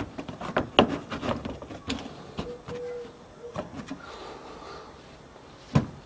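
The plastic lower cover under a Dacia Logan's front bumper is handled and pressed back onto its mounts, giving a series of sharp plastic knocks and clicks. The loudest comes about a second in, and another strong one just before the end.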